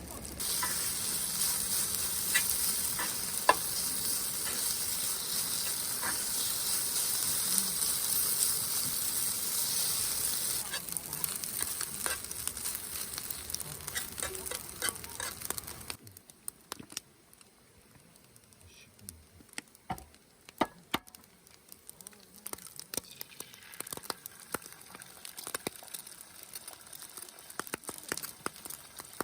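Food sizzling on a hot griddle, loud and steady for about ten seconds, then fading. About sixteen seconds in it drops suddenly to a much quieter spell with scattered pops and clicks.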